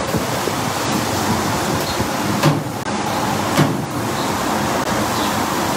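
Steady hiss of shaved ribeye sizzling on a hot charcoal-fired griddle, mixed with wind on the microphone, with two short knocks about two and a half and three and a half seconds in.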